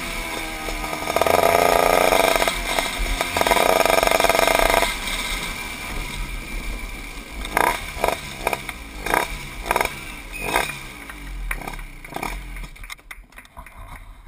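Honda 125cc two-stroke shifter kart engine heard on board: two strong bursts of revving in the first five seconds, then running low with a string of short sharp throttle blips, fading away near the end.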